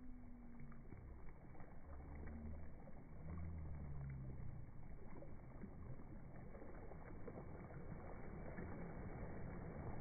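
Small sea waves lapping and washing over a pebble shore, a steady low wash with a brief low hum about three to four seconds in.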